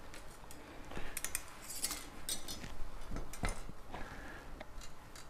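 A series of light metallic clinks and scrapes as an oil filler cap is handled and a dipstick is slid into the filler neck of an engine case.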